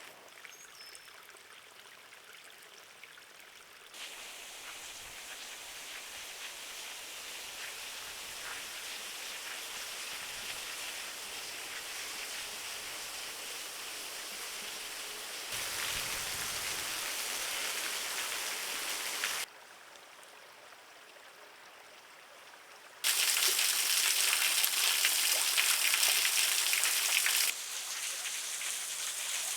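Running water: a low stream trickling over rock, heard as an even hiss. Its loudness jumps up or down abruptly several times, a sequence of separate shots.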